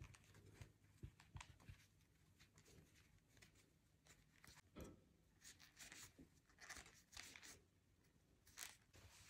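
Near silence with faint, scattered rustles and scrapes: a plastic crochet hook pushing T-shirt yarn ends through the stitches of a crocheted handle.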